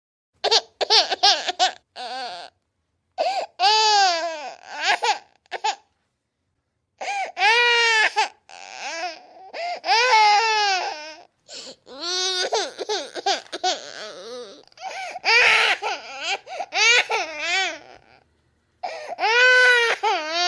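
Baby crying sound effect: high-pitched wailing cries that rise and fall in pitch, in bursts broken by short silences, the longest gaps about 3, 6 and 18 seconds in.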